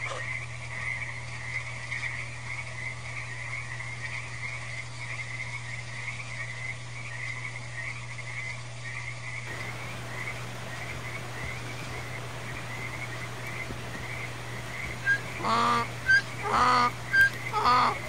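A steady chorus of rapid, repeated animal calls, like croaking frogs. Near the end, three louder, pitched calls of about half a second each stand out.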